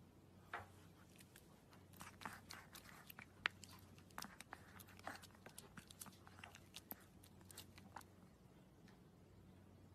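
Faint, irregular wet clicks and smacks of a small white puppy chewing with its mouth, thickest through the middle and stopping shortly before the end.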